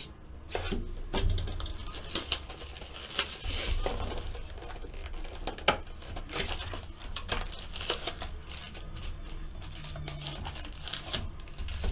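A cardboard box of football trading cards being torn open and handled, with foil card packs crinkling, in an irregular run of rustles and small sharp clicks.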